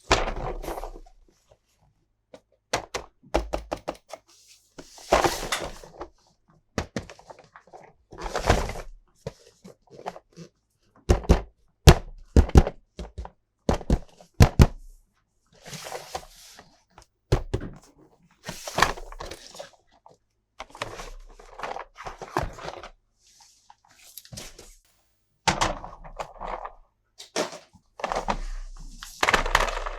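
Irregular knocks and clicks of plastic toys and packaging being handled, mixed with short bursts of rustling.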